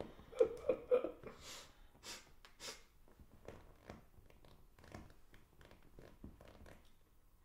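A man's crying tailing off: a few short gasping sobs, then three sniffs about half a second apart, followed by faint small rustles and ticks.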